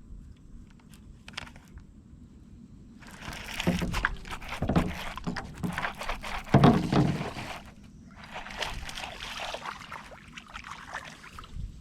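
Water splashing and sloshing beside a kayak in two spells of several seconds each, with sharp splashes inside them, the loudest in the middle: a hooked largemouth bass thrashing at the surface as it is brought to the boat.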